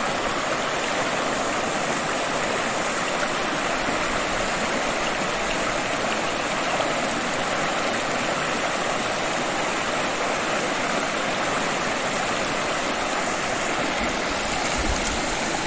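Fast-flowing river running over rapids and stones: a steady, unbroken rush of water.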